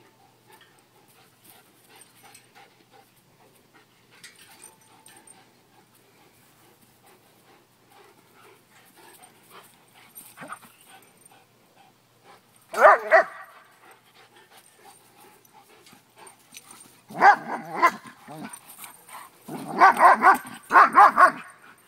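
Puppies barking at each other in play: quiet at first, then a short bout of barking about halfway through, another a few seconds later, and the loudest, quick run of barks near the end.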